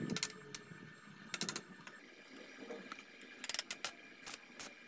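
Sharp metallic clicks and clinks of steel parts handled against a steel base plate. They come singly and in quick clusters of three or four.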